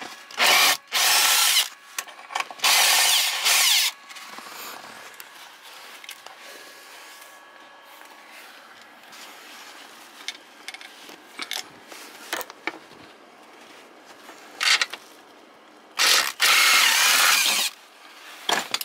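Cordless drill with a 10 mm socket running in short bursts to back out the nuts holding a steering-wheel airbag. There are three bursts in the first four seconds, then a short one and a longer one near the end, with light tool handling between.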